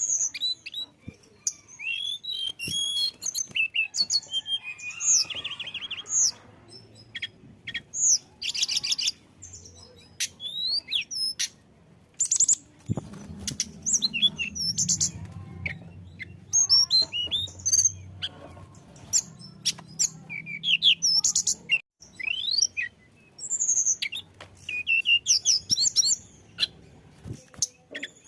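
Tledekan gunung singing a fast, varied run of high-pitched chirps, quick rising and falling whistles and short trills, with brief pauses between phrases. A faint low hum sits underneath from about halfway in until near the end.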